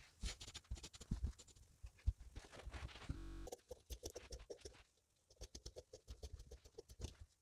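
Tailor's chalk scratching a line across embroidered lace fabric, then fabric scissors snipping through the lace in quick, regular cuts. A short even hum comes a little past three seconds in.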